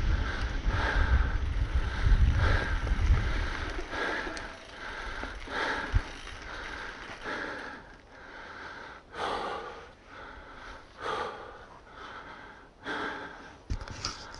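A mountain biker breathing hard in a steady rhythm of loud breaths; the breaths come quickly at first and are spaced about a second apart toward the end. Wind rumbles on the microphone for the first few seconds, then dies away.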